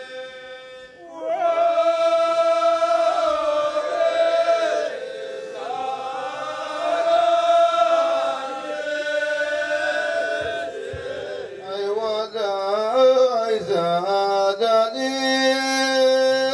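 Ahwash chant: a group of men singing long held notes together, joining a single held note about a second in. About twelve seconds in, one voice takes a solo line with wavering ornaments.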